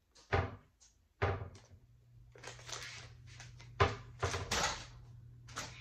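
Dull knocks and thunks as plastic-wrapped packs of clothing are handled and put down on a kitchen counter, with the plastic packaging rustling between the knocks.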